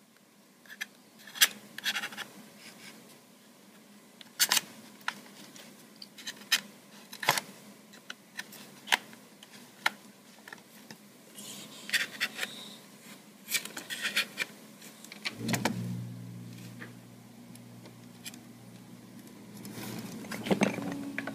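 Pry tool worked around the seam of an Android tablet's back cover: the plastic snap clips click and pop loose one by one, with short scrapes of the tool along the edge. A low steady hum comes in about two-thirds of the way through.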